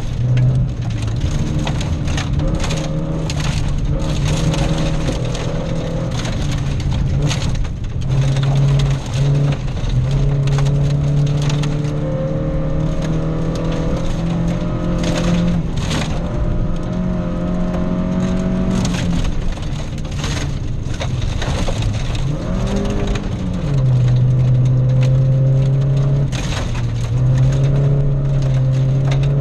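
Volvo rally car's engine running hard under load, heard from inside the cabin. It holds steady notes with a couple of pitch changes, about 9 and 23 seconds in, as gears change. Loose gravel cracks and rattles against the underbody again and again.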